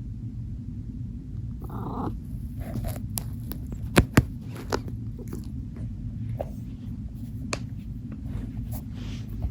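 A domestic shorthair cat purring close to the microphone: a steady low rumble. Scattered sharp clicks run through it, the two loudest about four seconds in, with a brief soft rasp about two seconds in.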